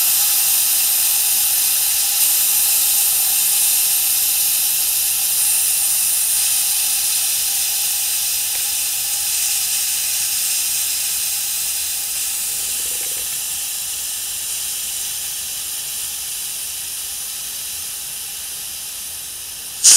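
Air compressor's unloader hissing steadily after cut-out, bleeding the stored air out of the condenser aftercooler and slowly fading. At the very end a short, louder blast of air as the moisture filters' automatic drains open, cut off abruptly.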